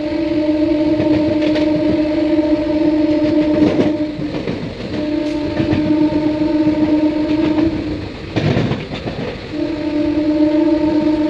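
Train locomotive horn sounding three long, steady blasts: one already going at the start, a second about five seconds in, and a third near the end, with rail clatter in the gaps between them.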